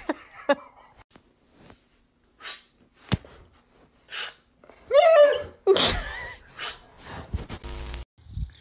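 A German Shepherd dog snorting and sneezing in short puffs a second or two apart, with a brief falling cry about five seconds in.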